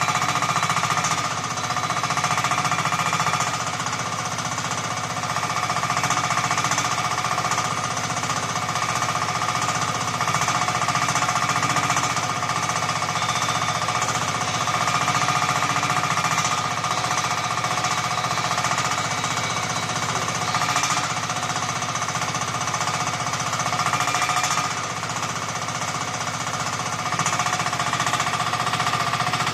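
Engine of a 1-ton mini excavator running steadily, a fast clattering rattle with a steady whine over it. The level dips slightly a few seconds in and again near the end.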